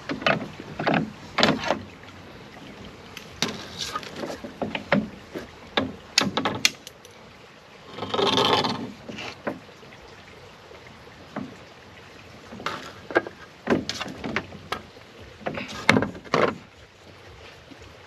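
Irregular clicks and knocks of oars and metal riggers being handled and fitted on a folding rowing boat, with one longer, rougher sound lasting about a second around eight seconds in.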